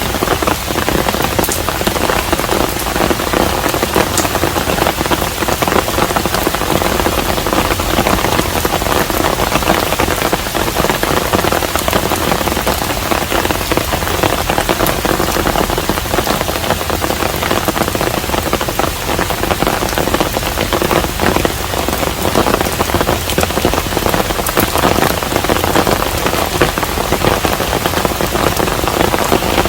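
Steady rain falling on a hanok, a traditional Korean house: an even, unbroken hiss with many separate drops ticking through it.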